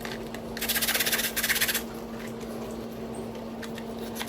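A dishwasher filter being scrubbed with a scrub brush in rapid back-and-forth strokes, one burst of about a second near the start, then a lull with a few light clicks.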